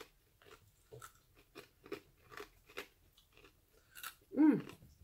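Crunchy baked Parmesan cheese crisps (Whisps Bacon BBQ) being chewed with the mouth closed, about two to three crisp crunches a second. Near the end, a short vocal sound that falls in pitch.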